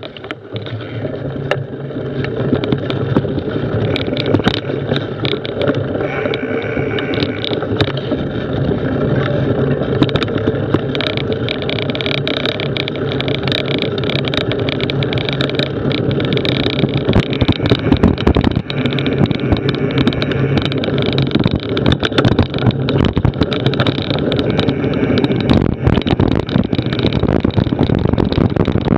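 Knobby-tyred off-road bike ridden over a rough dirt trail: a steady running drone under frequent knocks and rattles from the ground.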